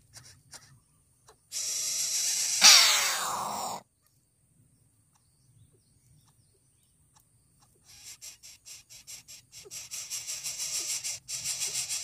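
Coucal nestlings hissing and rasping: a harsh hiss about two seconds in with a loud falling squeal through it, then after a pause a fast run of clicks that builds into a rasping hiss near the end.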